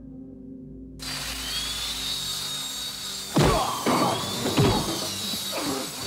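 An electric machine's spinning wheel starts up suddenly about a second in and runs with a steady high whine. From about halfway through, three heavy hits with grunts, the blows of a fist fight, cut across it.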